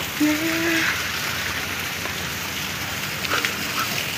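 A steady hissing wash of outdoor noise, with a short, flat voice-like tone about a quarter of a second in.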